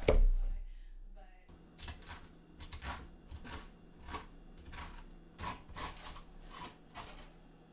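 A heavy knock as a cleaver splits a spaghetti squash on a plastic cutting board, dying away over about a second. Then a metal spoon scrapes seeds and strings out of the squash half, about two short scrapes a second.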